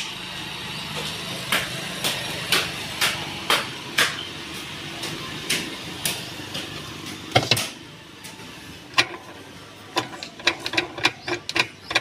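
Irregular clicks and knocks of hard plastic being handled: a washing machine's plastic lid is opened and parts in the tub are moved. Near the end the detergent box is pulled out in a quick run of clicks.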